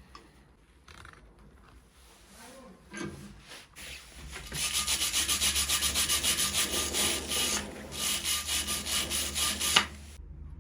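Rapid back-and-forth hand scrubbing of an abrasive against steel, about four strokes a second, typical of rubbing rust off old pliers. Faint scattered scratches come first; the scrubbing starts about halfway in, pauses briefly, then ends with a sharp click.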